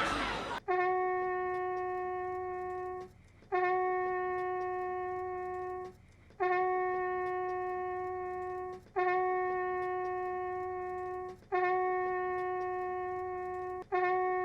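A single horn-like musical note sounded six times in a row, about every two and a half seconds. Each note starts sharply, fades slowly and then cuts off abruptly.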